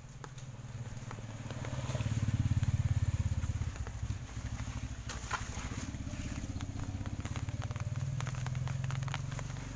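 A small engine running with a fast, even pulse. It grows louder over the first two seconds, holds steady, and eases off near the end. Rain patters and drips throughout.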